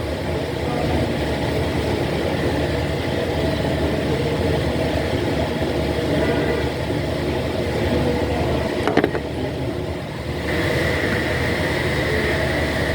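Peugeot 3008 petrol engine idling steadily, in a car brought in for knocking and shaking after start-up, which the mechanic traced to two shorted spark plugs and very poor-quality octane. A short click comes about nine seconds in, and a steady high whine joins about a second later.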